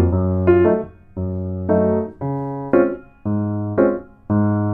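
Light instrumental background music: a keyboard tune in short held chords, about one a second, each cut off briefly before the next.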